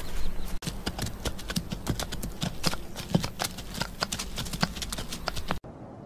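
Horses' hooves clopping on hard dry ground in a quick, uneven clatter that cuts off abruptly near the end.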